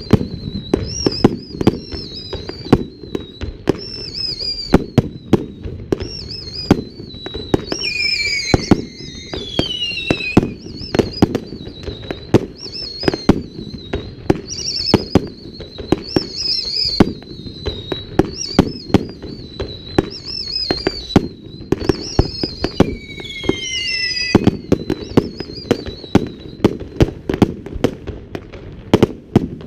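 Fireworks display: many sharp bangs, often several a second, with high warbling whistles and a few whistles gliding down in pitch.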